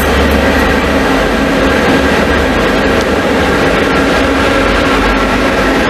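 PKP class ET21 electric freight locomotive drawing close and passing, hauling a freight train. It gives a loud, steady drone with several held tones over a heavy rumble.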